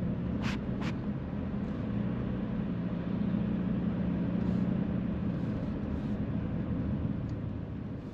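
Steady low drone of a vehicle's engine and road noise heard from inside the moving vehicle, with a couple of short ticks near the start.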